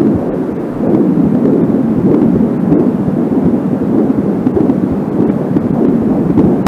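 Angelsound fetal doppler output: a loud, steady rumbling whoosh with no clear heartbeat rhythm, dipping briefly just under a second in.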